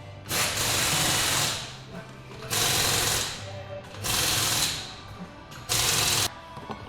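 Handheld power tool run in four short bursts of about a second each, with a rapid mechanical rattle.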